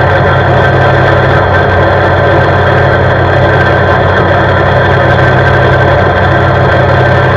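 CFMoto C-Force 520 ATV's single-cylinder engine running at a steady speed while the quad cruises on asphalt, its pitch holding level throughout.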